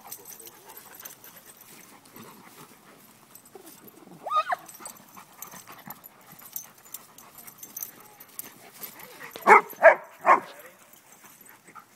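Dogs play-fighting: a short yelp about four seconds in, then three loud barks in quick succession near the end.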